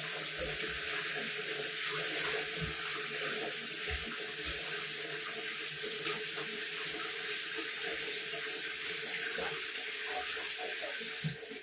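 Kitchen tap running steadily into a sink while hands are washed under hot water, the stream shutting off near the end.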